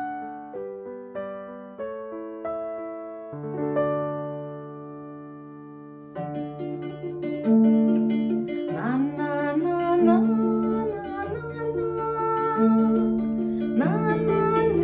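Instrumental music led by a harp: a slow melody of single plucked notes that ring and fade, joined about six seconds in by a fuller accompaniment with held low notes and a couple of rising slides.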